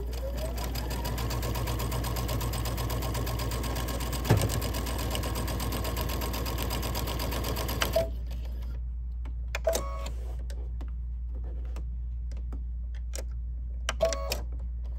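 Domestic electric sewing machine speeding up and stitching steadily through layered quilted fabric, with one sharp knock partway through. It stops about eight seconds in, followed by a few short clicks and chirps from the machine.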